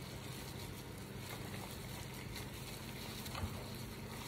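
Faint wet squishing and rustling of plastic-gloved hands massaging marinade into a raw whole chicken, with a few soft clicks over a steady low hum.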